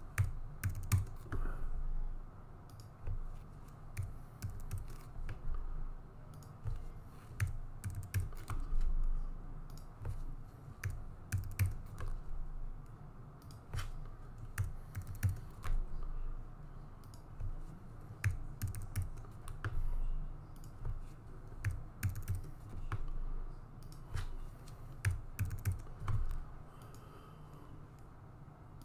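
Typing on a computer keyboard: irregular runs of key clicks with short pauses between them, and dull low thuds on the desk.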